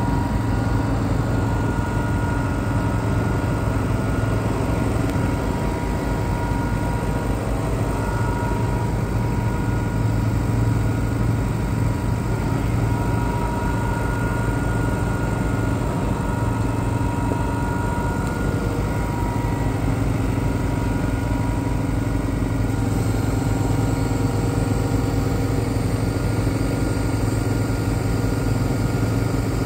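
Kubota M8560 tractor's diesel engine running steadily.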